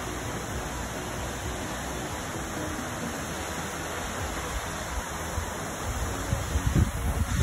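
Steady rushing of a waterfall, an even hiss. Wind starts buffeting the microphone near the end.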